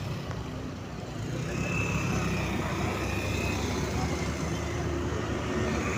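Motorcycle riding through city traffic, heard from the pillion seat: a steady engine hum and road rumble, with a bus and cars moving close alongside.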